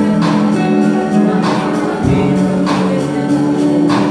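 Background music: sung vocals over sustained chords, with a light percussive hit about every second and a quarter.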